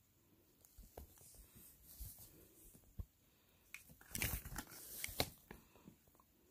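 Faint handling noise on a phone's microphone as the phone on its stand tips over and is set back up: a few scattered clicks, then a cluster of knocks, rubbing and scraping about four seconds in.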